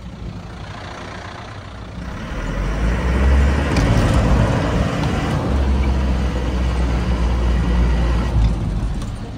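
Eicher truck's diesel engine heard from inside the cab, working harder from about two seconds in and running loud and steady under load, then easing off near the end.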